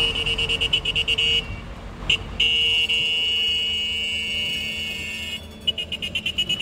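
Tram warning signal: a rapid trilling electric bell, about ten pulses a second, then a steady held high tone for about three seconds, then the trill again near the end. Low street traffic rumble runs underneath.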